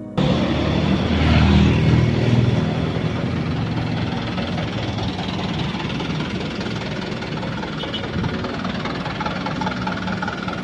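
Isuzu Elf minibus's diesel engine running, heard from inside the vehicle, louder for the first couple of seconds and then steady.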